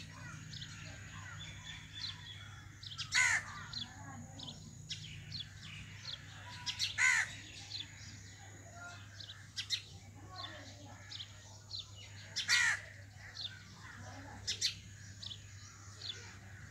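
Birds calling: three loud, harsh cawing calls several seconds apart, over frequent short high chirps from small birds.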